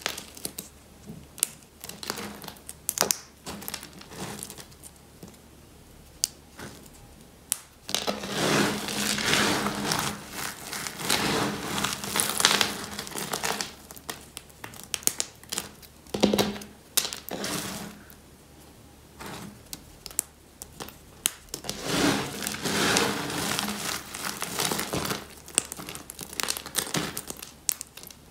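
Dry, brittle retro soap shards crunching and crackling as hands rake and squeeze through a heap of broken soap. Dense crackling comes in spells, with quieter stretches of scattered clicks between them.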